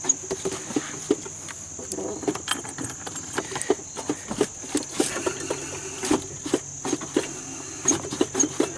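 Crickets chirping steadily, with irregular light knocks and clicks over them.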